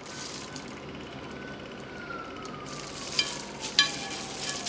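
A hand squelching and kneading a wet mashed fish kebab mixture in a bowl, with a few louder squishes a little past halfway. A faint tone falls slowly in pitch behind it through the second half.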